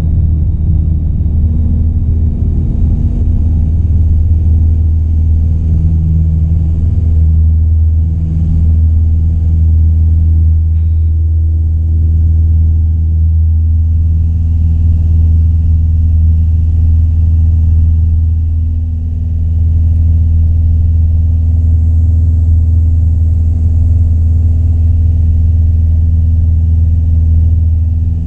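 Piper Archer's four-cylinder Lycoming O-360 engine and propeller at full takeoff power, heard inside the cabin as a steady, loud low drone through the takeoff roll and climb-out.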